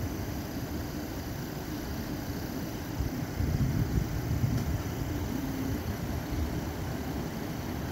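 Police SUV's engine idling close by: a steady low rumble.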